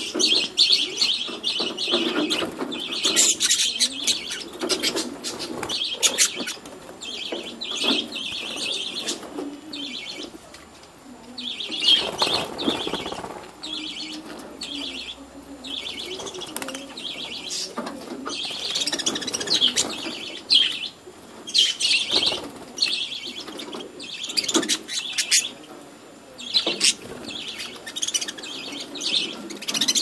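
A flock of budgerigars chattering: bursts of high chirping come every second or so, quieter for a few seconds near the middle, mixed with wing flutters as birds move about the perches.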